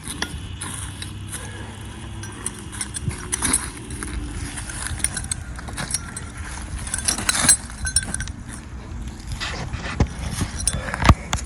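Steel rigging hardware being handled: a snatch block, shackle and cable choker clinking and knocking at irregular intervals, with a sharp knock near the end.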